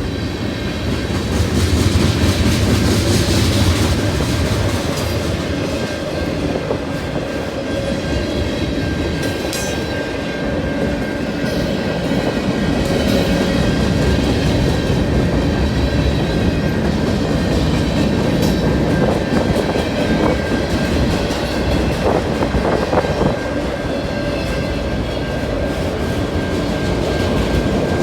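Freight train rolling past: a steady rumble of railcars with wheels clicking over the rail joints, plus a faint steady high squeal.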